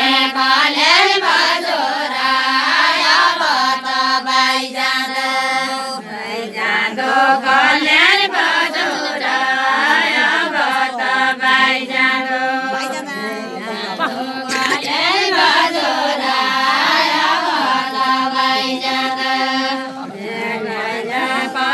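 Group of women singing a traditional Deuda folk song together, in long held notes that alternate with sliding, wavering phrases.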